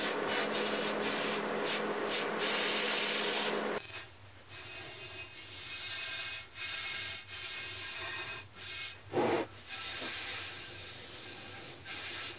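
Hand sanding painted sheet-metal panels with a round abrasive disc held under the palm: repeated rubbing strokes with short breaks between them, one stroke louder about three-quarters of the way through.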